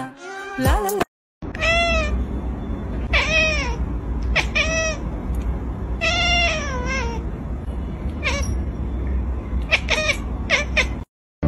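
A long-haired black-and-white cat meowing repeatedly over a steady low hum: about five drawn-out meows that rise and fall in pitch, roughly a second and a half apart, then a quick run of short meows near the end.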